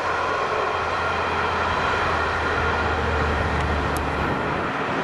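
Diesel-hauled passenger train passing, with the steady rumble of carriages on the rails. Under it runs the locomotive's low engine hum, which drops away about four seconds in as the train draws off.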